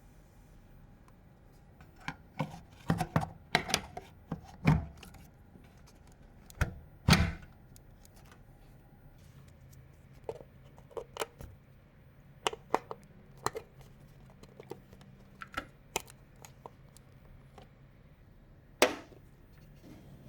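Irregular clicks, taps and knocks of hard computer parts being handled and fitted during a PC assembly, with a busy cluster early on, a loud knock about seven seconds in and another near the end.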